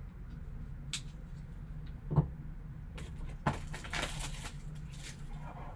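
Hands opening and handling a trading-card box and its wrapping: a small click, a knock just after two seconds in, then about a second and a half of rustling and crinkling, over a steady low hum.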